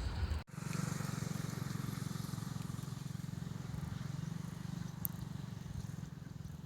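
Diesel locomotive engine running with a steady low hum and a fast, even throb. The sound breaks off briefly about half a second in, then resumes.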